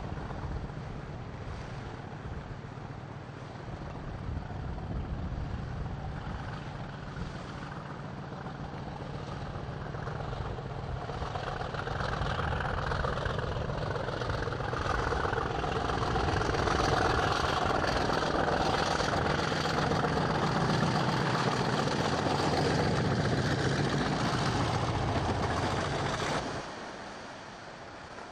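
A British Rail main-line diesel locomotive hauling a passenger train passes along the sea wall. Its engine grows steadily louder over the noise of wind and breaking waves, then the sound drops away abruptly near the end.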